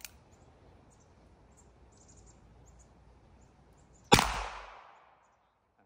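A single gunshot about four seconds in, from a gun whose hammer was cocked by hand: one sharp, loud report that echoes away over about a second. Faint bird chirps before it.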